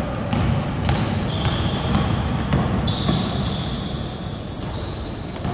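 Basketball game in a large indoor gym: a ball being dribbled on the court floor in repeated bounces, with players' shoes squeaking in long high squeaks through the middle.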